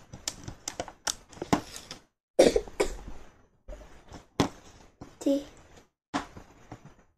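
Plastic toy building bricks clicking and clattering as pieces are handled, pressed together and set down on a tabletop: a string of short sharp clicks and knocks, with one louder, longer burst about two and a half seconds in.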